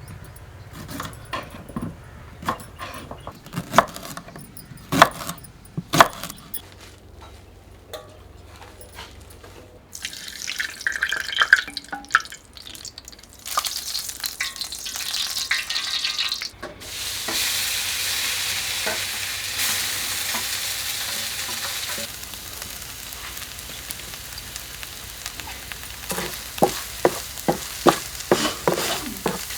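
Food frying in hot oil, sizzling, with a spoon or ladle knocking and scraping against the pan as it is stirred. The sizzle swells loud about halfway through, after a stretch of sharp knocks, and quietens later, with more knocks near the end.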